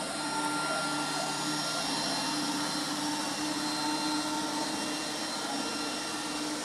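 bObi Classic robotic vacuum cleaner running on the floor: a steady motor whir with a constant hum.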